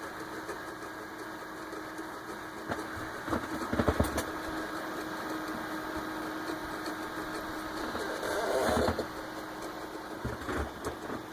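Open desktop PC running: its cooling fans and hard drive give a steady hum with one held tone. A few knocks come about four seconds in, and a louder rustling swell comes near nine seconds.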